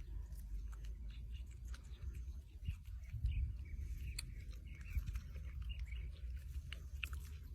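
Baby monkey chewing and biting food with small crunching clicks, and a few short high squeaks in the middle.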